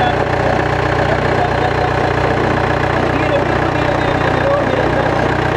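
Modified Mahindra off-road jeep's engine running steadily at low revs, without revving, as the jeep crawls over a boulder.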